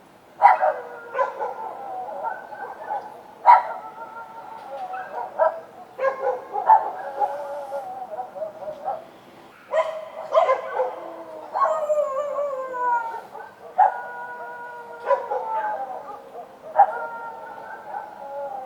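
Several dogs howling together in long, wavering wails, with sharp barks breaking in every second or two.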